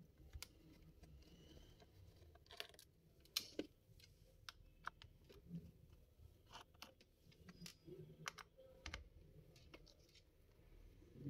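Faint, irregular clicks and light taps of a small screwdriver working the screws out of a laptop's bottom panel, a few taps a little sharper than the rest.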